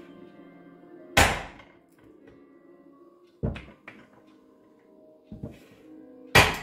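Clear plastic chocolate mould knocked down onto a stone slab to release cone-shaped bonbons: five sharp knocks, the first and last the loudest, over soft background music.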